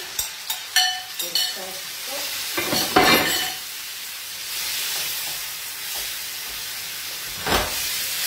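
Chopped fresh tomatoes tipped into an aluminium frying pan of hot oil with browning garlic and onion. Short knocks at first, a loud burst of noise about three seconds in, then steady sizzling, with a knock near the end.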